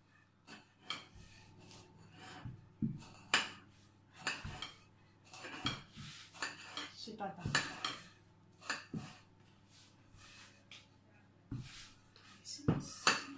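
Irregular knocks and clinks of kitchen work while a wooden rolling pin rolls out pizza dough on a plastic mat.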